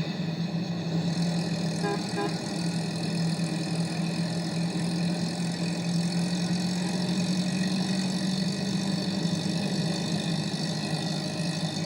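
Small van engine running at a steady drone, with a constant hiss behind it.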